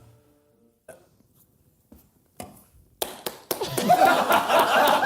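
A person burping: a long, loud, rough burp that starts about three seconds in, after a near-quiet stretch with a few small clicks.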